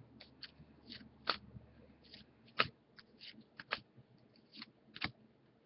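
Baseball trading cards being flipped through and handled: a string of light, irregular clicks and snaps, with a few sharper ones about a second apart.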